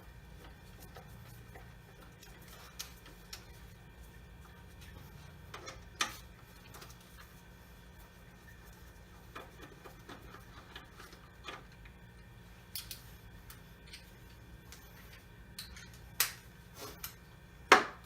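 Scattered clicks and knocks of hand tools working on metal, with sharper knocks about six seconds in and twice near the end, over a faint steady low hum.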